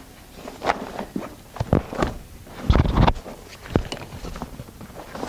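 A rolled-up inflatable paddleboard being stuffed into its fabric carry bag: irregular rustling and scraping with dull thumps, the loudest about three seconds in.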